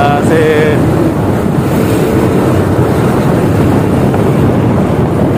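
Steady, loud rumble of a low-flying Black Hawk helicopter's rotors, mixed with wind buffeting the microphone.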